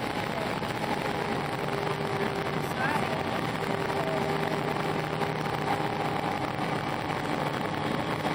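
Steady airliner cabin noise inside an Airbus A319 in flight: the even rush of engines and airflow with a faint low hum, and faint voices murmuring in the cabin.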